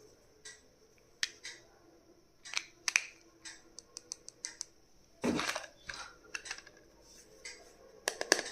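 Small stationery items and their plastic packaging being handled: scattered sharp clicks and taps, with a louder handling noise about five seconds in and quicker clicking near the end.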